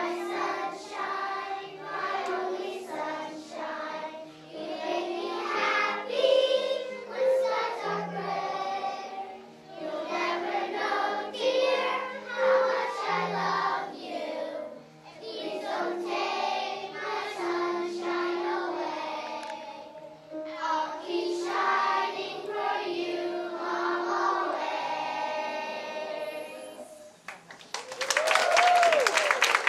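A large children's choir singing a song together with an instrumental accompaniment. The song ends about 27 seconds in and the audience breaks into applause near the end.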